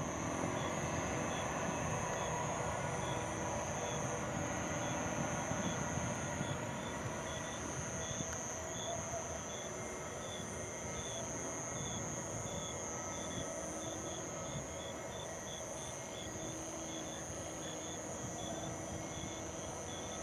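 Distant jet airliner engines making a steady rumble that slowly fades, with a high, continuous wavering trill and short regular chirps running over it.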